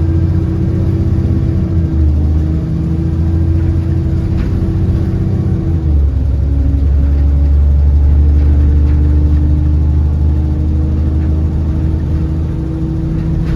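Alexander Dennis Enviro400 double-decker bus running under way, heard from on board: a steady engine drone with a constant whine over it, the whine the bus is known for as a "Hoover". About six seconds in the pitch dips, then picks up and steadies again.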